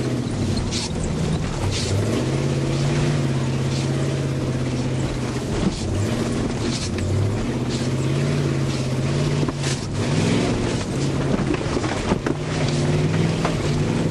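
1972 Cadillac's V8 engine running inside the cabin as the car is driven along a rough dirt track, its pitch dropping and rising several times with the throttle. Several sharp knocks break in over the bumps.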